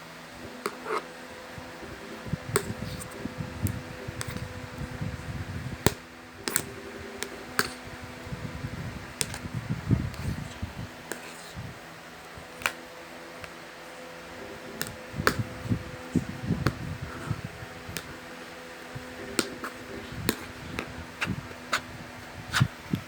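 Slime being handled and played with: scattered sharp clicks and pops with low rustling handling noise, over a steady hum.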